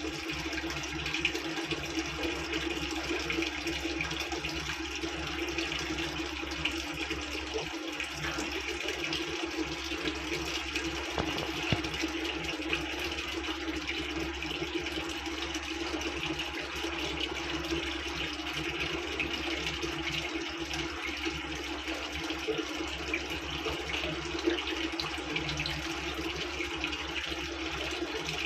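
Water running steadily into a Midea 6.5 kg washing machine, with a steady hum underneath. The machine keeps taking water without starting, a fault the owner puts down to a bent pressure-sensor pipe.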